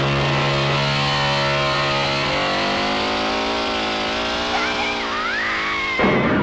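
Chainsaw engine running after being started, its note wavering, mixed with distorted horror-film music. A high wailing tone rises and falls near the end, then a louder, harsher burst of sound cuts in.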